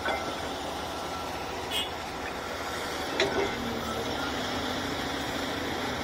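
Caterpillar hydraulic excavator running as it works its bucket, with a few short knocks, the loudest a little after three seconds.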